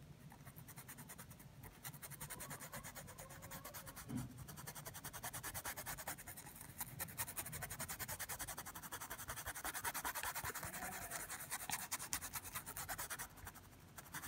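Paintbrush scrubbing quickly back and forth over cloth stretched in an embroidery hoop, blending dark paint: a faint, fast, even scratching that starts about two seconds in and stops shortly before the end.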